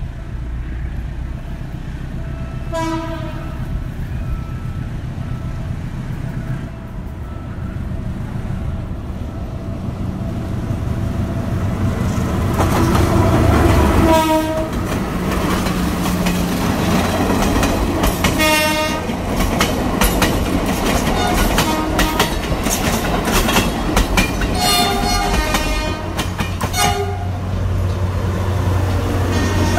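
Philippine National Railways diesel locomotive passing close, sounding its chime horn several times: a short blast about three seconds in, a long loud one around the middle, and more short blasts later. Its engine rumbles throughout, and the wheels click over the rail joints in the second half.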